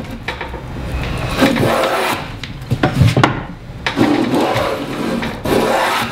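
Fillister plane cutting along the edge of a wooden board: several rasping strokes as the blade peels off shavings.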